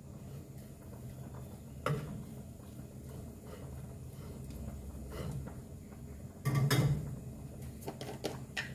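Spatula stirring and turning fried rice in a nonstick frying pan. Against a soft steady background there is one knock about two seconds in, a louder scrape lasting about half a second later on, and a few light knocks near the end.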